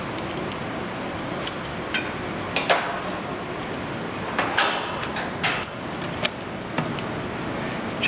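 Scattered clicks and clinks of hand tools on metal: needle-nose pliers pulling the spade-connector wires off an air conditioner capacitor's terminals, then a clamp meter and its test leads being handled. Steady background noise runs underneath.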